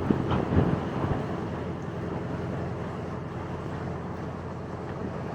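Engine of a small passenger ferry boat running steadily under way, a low even hum.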